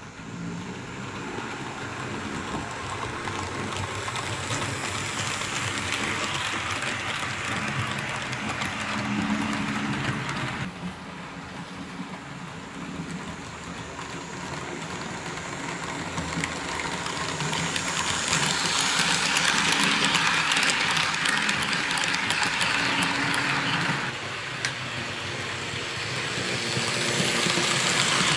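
HO-scale model train, a Roco Renfe Class 307 diesel locomotive pulling tank wagons, running on the layout track. It makes a steady rolling rush of small wheels on rails with a low motor hum, louder in the second half.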